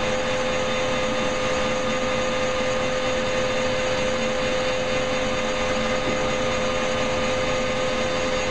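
Metal lathe running with its spindle at about 800 RPM: a steady machine drone with a constant whine, unchanging throughout.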